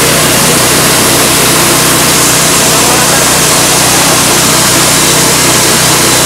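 Coffee husking machine running steadily: a loud, even rushing from its blower and husking drum over a low, constant motor hum.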